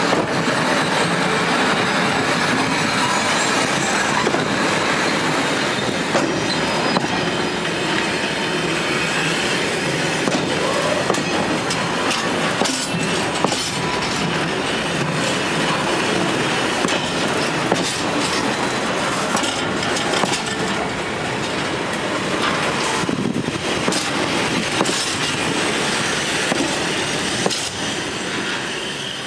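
Freight train wagons rolling slowly past under braking: steel wheels grinding and squealing on the rail, with scattered clanks and clicks over the track. The noise is steady and dies away near the end.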